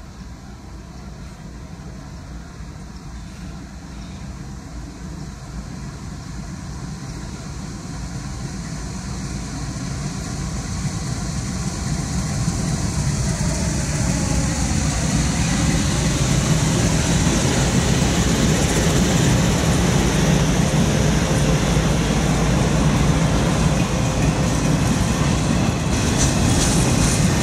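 Norfolk Southern diesel freight locomotives approaching and passing close by, their engine drone growing steadily louder and dropping in pitch as they go past about halfway in. Auto rack cars then roll by loudly, with wheels clicking over rail joints near the end.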